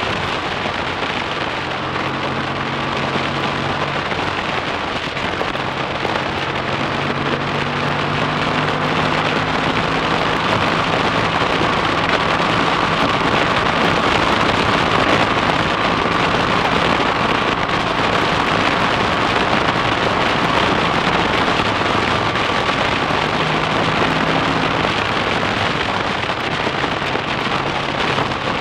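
Freshly rebuilt BSA A65 Thunderbolt's 650 cc parallel-twin engine running at road speed, its note shifting a little now and then with the throttle. Heavy wind rush and road noise over the microphone largely cover it.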